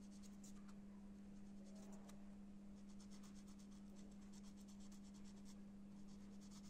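Faint, quick scratching strokes of an emery nail file sanding a saxophone key's mother-of-pearl touch to take off heat-burn darkening, coming in short runs, over a steady low hum.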